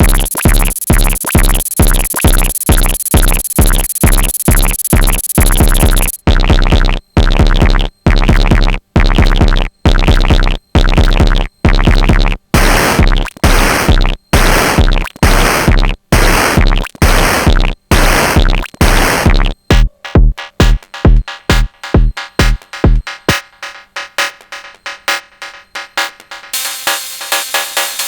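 Sonic Potions LXR-02 digital drum machine playing a techno groove: a steady kick drum about twice a second with percussion over it. About three-quarters of the way through, the kick drops out, leaving quicker, quieter percussion hits.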